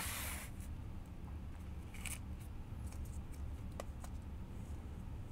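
Faint handling noise: a small plastic parts bag crinkling as it is picked up with metal tweezers, with a few light clicks, over a steady low hum.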